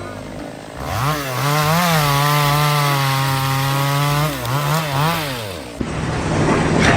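Small engine revving up to a steady high pitch, blipped twice, then dropping off. A loud noisy rush follows near the end.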